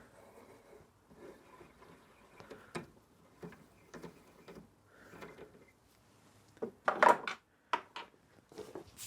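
Tools and small metal parts being handled on a workbench: faint rustling and light knocks, then a louder clatter of several sharp knocks about seven seconds in.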